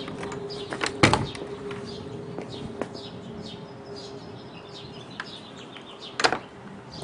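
Wooden plank door of an outdoor water-heater closet being opened, with a sharp knock about a second in and another just after six seconds. Small birds chirp in the background throughout.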